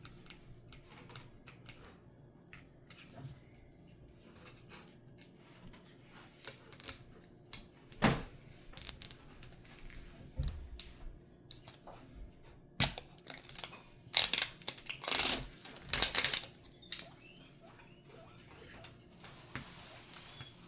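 Toy packaging being worked open by hand: scattered clicks and handling noises, with a run of several louder scraping, tearing noises about fourteen to sixteen seconds in.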